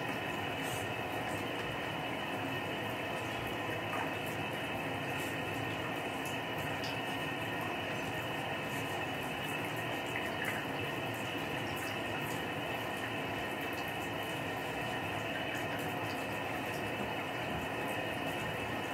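Water running steadily into a bathtub, an even rushing hiss.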